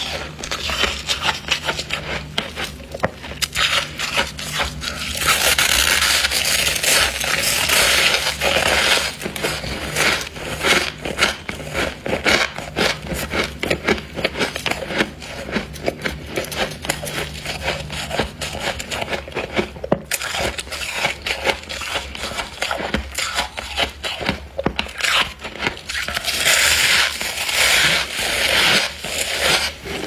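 Thick, fluffy freezer frost (grown with a humidifier) being crunched and scraped: a dense run of crackles, with louder hissing crunch spells about five to nine seconds in and again near the end.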